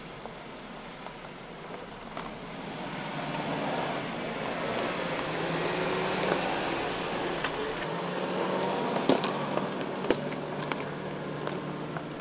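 2020 Suzuki Jimny crawling slowly over a rough forest dirt track, its engine running at low revs and growing louder as it passes close, then easing off as it drives away. Sharp cracks and crunches of twigs and stones under the tyres come a few times near the end.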